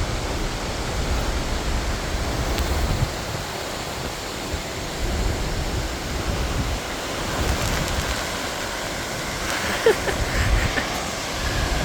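Steady rushing noise of a large waterfall, with gusts of wind and spray buffeting the phone's microphone.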